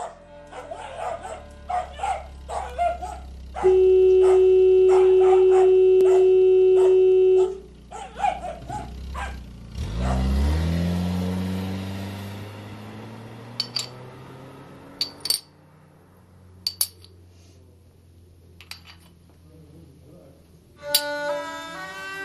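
A dog barks repeatedly, broken by a loud steady tone held for about four seconds. About ten seconds in comes a heavy low boom that dies away slowly. After it, a few sharp clinks of broken china bowl shards sound as they are picked up, and violin music starts near the end.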